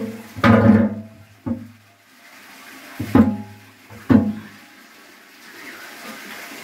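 A series of sharp knocks with a short ringing tail, then water starting to rush through the small farm hydroelectric turbine as it is turned on, rising near the end.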